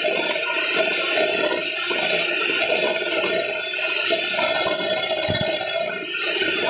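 Electric hand mixer running steadily with a constant whine, its beaters whipping instant coffee, sugar and water in a glass bowl to make it fluffy.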